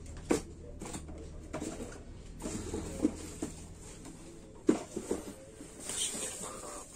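Scattered short taps and knocks of cardboard boxes and parts being handled and set down on a tiled floor, the loudest knock about two-thirds of the way through.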